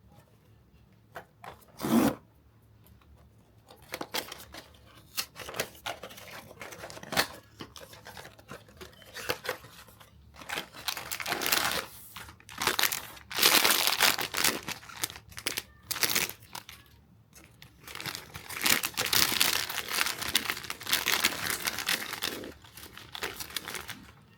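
Packaging being torn open and crinkled by hand during an unboxing, in irregular rustling bursts with a sharp rip about two seconds in; the busiest stretches fall in the second half.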